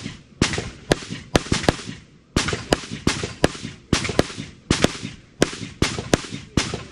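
Rapid semi-automatic gunfire from a carbine fired prone: a string of about sixteen sharp shots at a steady pace of two to three a second, each with a short echo, with a brief pause about two seconds in.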